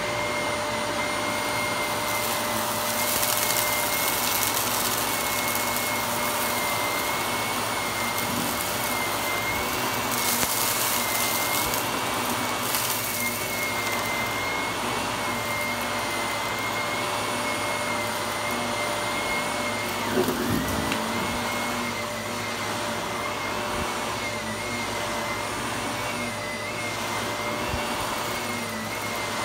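Upright bagless vacuum cleaner running steadily on carpet: a constant motor whine under the rush of air, the hiss swelling a few times as it is pushed along. A single bump about twenty seconds in.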